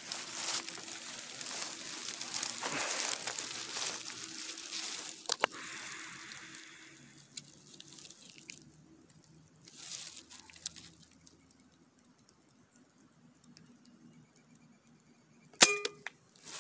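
Rustling and handling noise for the first several seconds, then quiet, then a single sharp shot from an Artemis M30 PCP air rifle with a brief metallic ring near the end.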